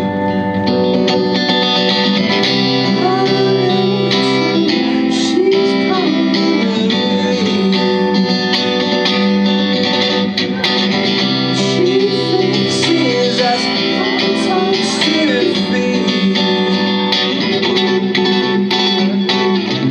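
Instrumental break in a live song: guitar playing over a steady backing, with lead notes that bend in pitch.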